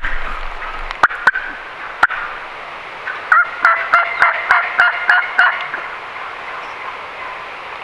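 Turkey yelps: a quick run of about a dozen notes, about five a second, beginning about three seconds in. A few sharp clucks come in the first two seconds.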